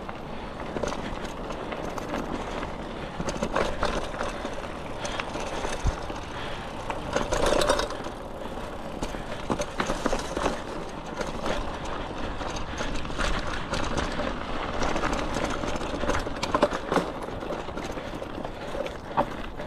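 Mountain bike ridden along a dirt trail: tyres running over dirt and gravel, with frequent knocks and rattles from the bike over bumps and a low rumble of wind on the microphone.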